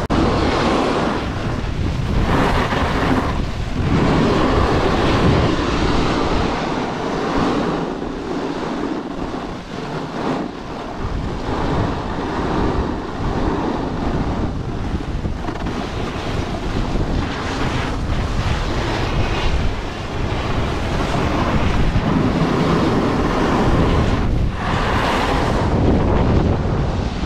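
Wind rushing over the camera microphone while snowboarding, mixed with the scrape of the snowboard sliding and carving on packed snow; the rush swells and eases through the turns, with brief lulls.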